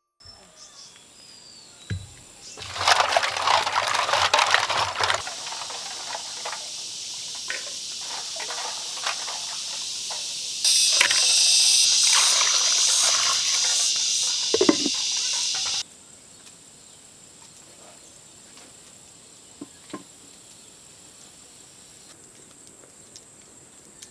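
Water rushing and splashing as freshwater mussels are rinsed in a clay pot, loudest in two stretches, with a steady hiss in between. After about 16 seconds it drops to a quiet background with a few faint crackles from the wood fire under the pot.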